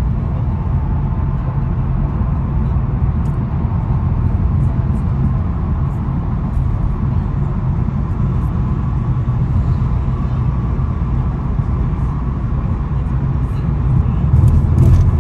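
Steady low road and engine noise of a car driving at freeway speed, heard from inside the cabin, growing a little louder near the end.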